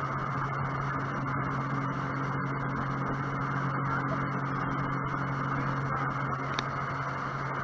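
Sea-Doo jet boat's engine running at a steady cruising speed, a constant low hum, with a steady rush of water past the boat.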